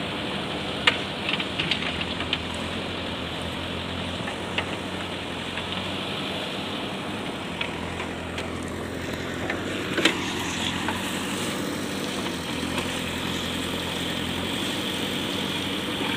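Diesel engine of a JCB backhoe loader running steadily, with a few short clicks and one sharper clack about ten seconds in.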